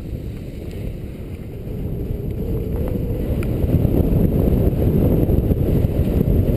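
Wind buffeting a helmet-mounted camera's microphone on a downhill ski run: a steady low rumble that grows louder over the first few seconds, then holds.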